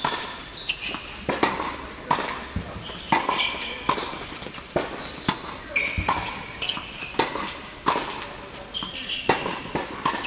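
Tennis balls struck by rackets and bouncing on a hard indoor court in a quick practice rally, sharp pops about once a second, echoing in the hall, with short high squeaks between the hits.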